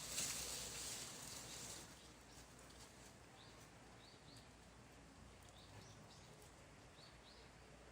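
A rustling hiss for about the first two seconds, then quiet with faint, short, high chirps of small birds every second or so.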